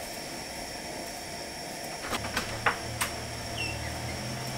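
Steady hiss of a lit propane burner heating a pan of frying grease, with a few sharp knocks and clicks about two to three seconds in and a low hum that starts about two seconds in.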